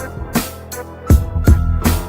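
Music with a drum kit beat and a heavy bass line; the beat drops out briefly in the middle and comes back in with a loud hit about a second in.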